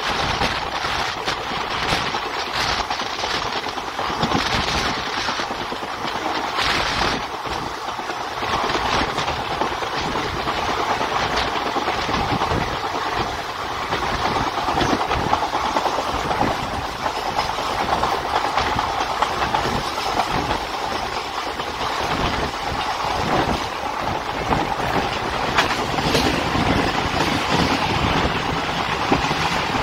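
Passenger train running at speed, heard from on board a coach: a steady rumble and rush with the frequent clatter and knocks of the wheels on the track.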